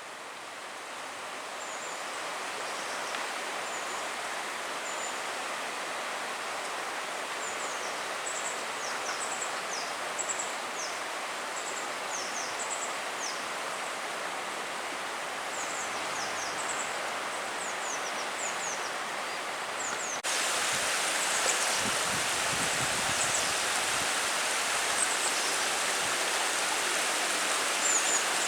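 The River Banwy in flood: swollen water rushing steadily, with short high chirps over it. The water sound steps up suddenly about twenty seconds in, then runs on louder.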